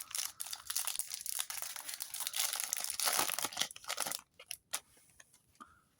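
Foil Yu-Gi-Oh booster pack wrapper being torn open and crinkled for about four seconds, then a few light clicks and rustles as the cards are handled.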